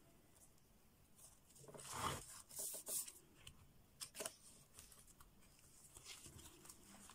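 Pages of a handmade book of decorated paper, card and envelopes being turned by hand: faint rustles and soft flaps of paper, the loudest about two to three seconds in.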